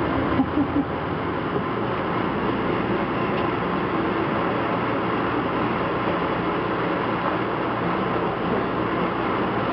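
Steady rumble and hum of an Amtrak passenger coach heard from inside the car, alongside another train, with a few short knocks about half a second in.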